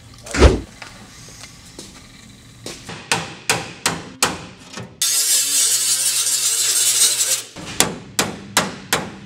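Hammer rapping on the steel floor-pan edge of a 1957 Chevy Bel Air body, sharp metal-on-metal strikes about three a second. A dull thud comes near the start. A little past halfway, a loud steady hiss cuts in for about two and a half seconds and stops abruptly, and then the hammering resumes.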